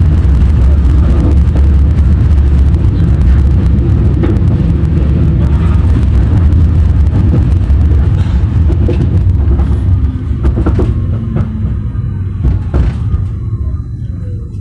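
Bombardier NGT6 low-floor tram running along the track with a loud, steady low rumble, then slowing: the rumble fades from about two-thirds of the way in, several sharp knocks of the wheels over rail joints or points sound, and a whine falls in pitch as it brakes.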